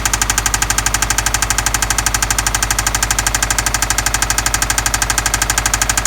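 Subaru Impreza GDA's EJ20 flat-four engine idling with a rapid, even ticking knock; the owner calls it an abnormal engine noise of unknown cause.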